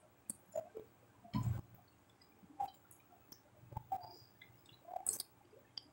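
Soft, wet chewing and lip-smacking of a person eating fish moqueca and rice by hand: scattered short smacks and clicks, the loudest about a second and a half in.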